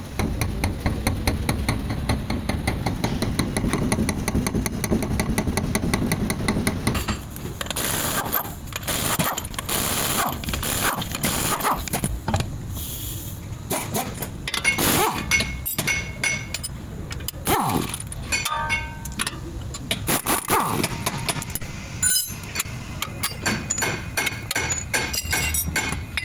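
Chevrolet Malibu front shock absorber noise: irregular knocks, scrapes and short squeaks from the front suspension, the sign of a faulty shock absorber. These follow a steady rumble with fast ticking that stops about seven seconds in.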